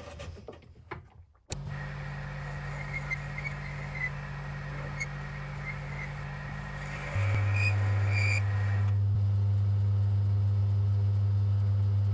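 Myford Super 7 lathe starting up about a second and a half in and running steadily with a low hum while the faceplate spins and the tool takes a cut in the casting, with faint light ticks from the cut over the first several seconds. The hum steps up louder about seven seconds in.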